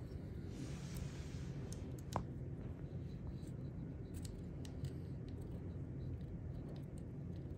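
Allen key turning out the small trigger screw in a Planet Eclipse 170R paintball marker's metal frame: faint scattered metal clicks and light handling sounds, with one clearer click about two seconds in.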